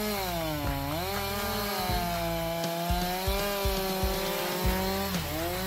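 Small engine-driven saw running while it cuts through a log, its engine pitch sagging briefly about a second in and again near the end as the cut loads it.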